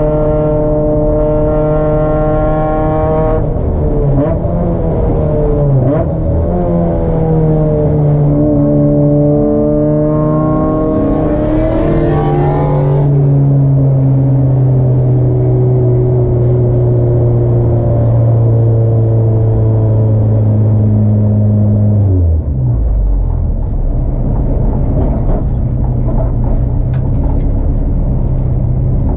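Race car engine heard from inside the car, its pitch falling and rising through shifts and acceleration, then holding a steady note. About 22 seconds in the engine note drops away abruptly, leaving only tyre and wind noise.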